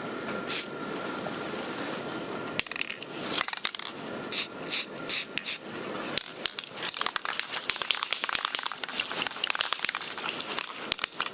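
Aerosol spray paint can hissing in a steady spray, then a series of short spray bursts mixed with rapid clicking and rattling as the can and net are handled.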